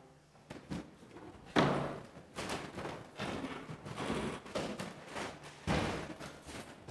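Scattered thumps and knocks with rustling as people move about and handle books and papers. The loudest thump comes about a second and a half in, and another strong one near the end.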